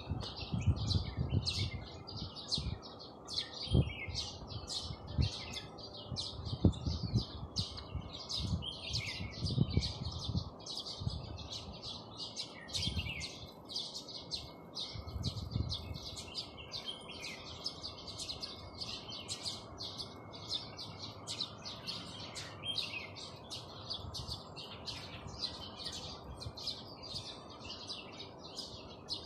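A large flock of small birds chirping at once, a dense, continuous chatter of many overlapping short calls. Low thumps come and go through the first half.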